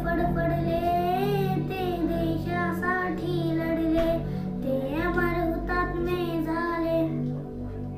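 A child singing a Marathi patriotic song about the nation's martyrs in long held, wavering notes over a steady instrumental backing.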